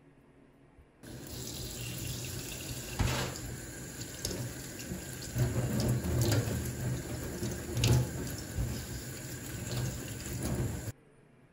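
Tap water running and splashing onto wasabi leaves in a stainless-steel mesh colander in a metal sink, as a hand rinses the leaves. The water starts about a second in and cuts off abruptly near the end, with three brief louder hits along the way.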